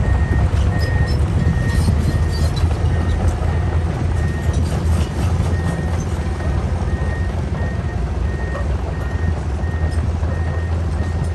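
Komatsu PC210 excavator's diesel engine running steadily under a travel alarm beeping at about one and a half beeps a second, which shows the machine is travelling on its tracks. The beeping pauses for a few seconds mid-way, and a few short metal clanks come through.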